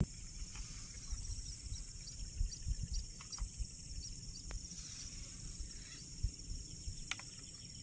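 Steady high-pitched insect chorus with a fast, even pulsing trill, over a few short chirps and faint low knocks.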